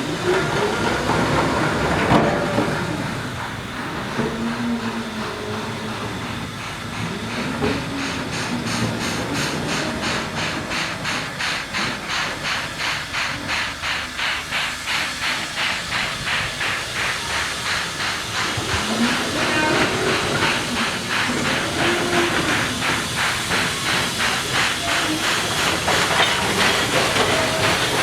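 China Railways JS-class 2-8-2 steam locomotive working a train, with a strong steam hiss at first, then an even exhaust chuff of about two to three beats a second. Wavering squeals from wheels or wagons come and go under the beat.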